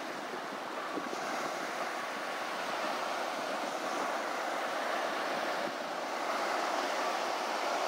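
Ocean surf washing onto a sandy beach, a steady noise of breaking waves with gentle swells.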